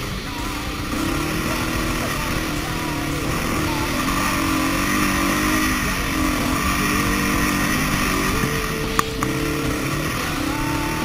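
KTM 690 Enduro's single-cylinder four-stroke engine running while the bike rides over loose sand, its pitch rising and falling with the throttle over steady wind noise. A single sharp click about nine seconds in.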